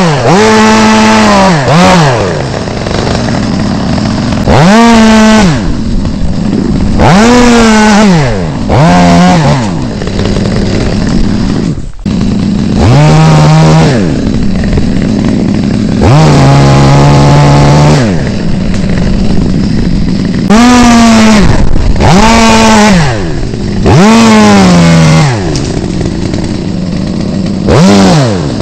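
Chainsaw revved over and over in short bursts, its pitch sweeping up and dropping back toward idle between each, with two longer, steadier runs at a lower pitch, as limbs of an alder are cut.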